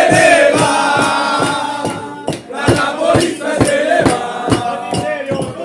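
A group of men singing a chant together over steady, rhythmic hand clapping.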